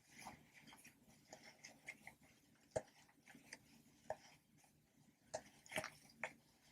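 Animal-shaped popper toys being pressed: soft, irregular pops and clicks, with sharper pops about three seconds in and again near six seconds.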